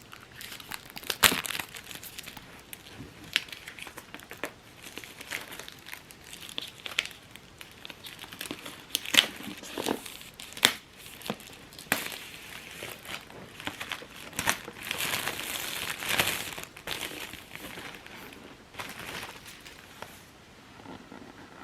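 Plastic wrapping and packaging crinkling and tearing as a product box is unwrapped by hand, with scattered sharp clicks and taps from the box being handled. A longer stretch of steady crinkling comes about two-thirds of the way through.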